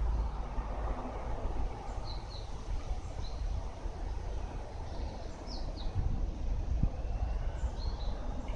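A small bird gives several short high chirps, mostly in pairs, over a steady low outdoor rumble; a brief low thump sounds a little under seven seconds in.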